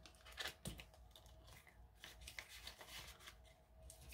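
Faint rustling and soft ticks of paper prop-money bills being handled, as the bills are slipped into a binder's zipper pocket and a page is turned.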